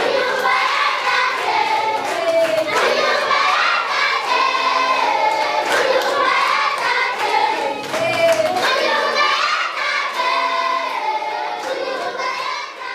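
A group of children singing together as a choir, with hand claps cutting through the song.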